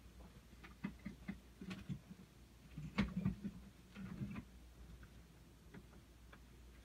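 Faint, irregular light ticks and taps, bunched in the first two-thirds with the loudest about three seconds in, over a low steady hum.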